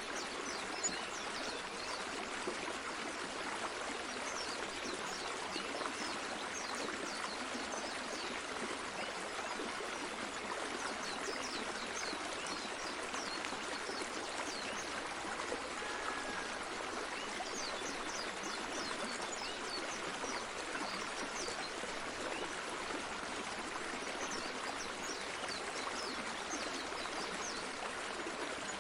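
A stream of running water flowing steadily.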